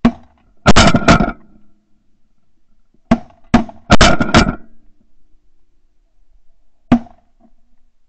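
Shotgun blasts from several hunters firing at decoying Canada geese: a quick burst of three in the first second or so, a rapid string of four between about three and four and a half seconds in, and one more near the end, each shot loud and sharp.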